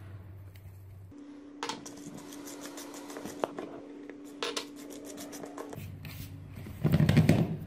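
Clicks and scrapes of a small dish knocking against a plastic mixing bowl as powdered sugar is tipped into flour, then hands rubbing and mixing through the flour, loudest near the end. A steady low hum runs underneath.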